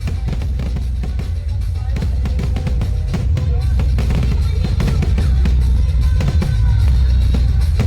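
Loud music with a heavy bass drum beat.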